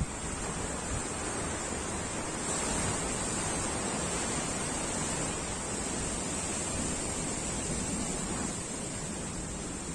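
Sea surf washing on the shore with wind on the microphone, a steady rushing that swells a little a few seconds in and eases near the end.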